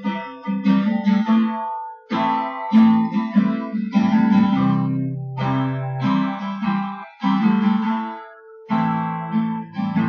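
Guitar strumming chords in an instrumental passage of a song, in phrases with short breaks about two and seven seconds in.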